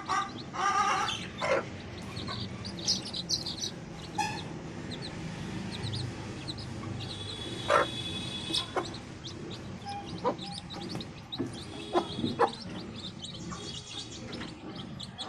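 A parrot-beak Aseel hen clucking while her chicks peep in short, high calls scattered throughout, with a few sharp knocks.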